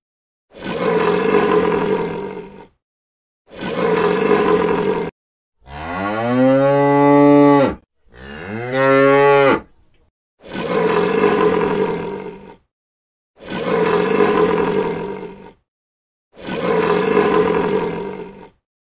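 African buffalo calling: seven deep, moo-like calls of about two seconds each, separated by short silent gaps. The two in the middle are clearer, rising in pitch and then holding; the others are rougher and more alike.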